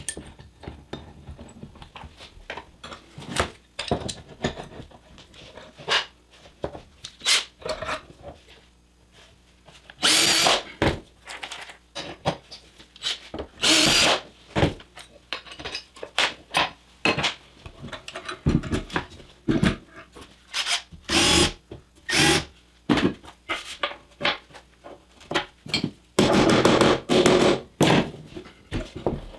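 Cordless drill boring holes through an aluminium rail into an MDF base board, in short runs of about a second and one longer run of about two seconds near the end. Between the runs come clicks and knocks of clamps, rail and board being handled.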